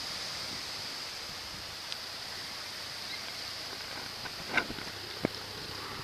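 Steady seaside hiss of gentle surf and wind at the water's edge, with a couple of short, sharp sounds about four and a half and five seconds in.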